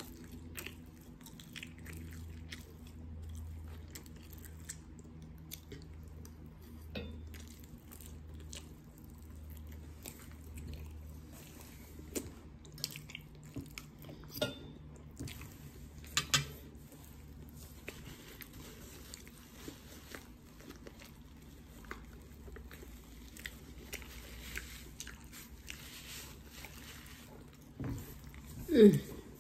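Close-up eating sounds: a person chewing and biting food, with scattered light clicks. Near the end comes a short, loud vocal sound that falls in pitch.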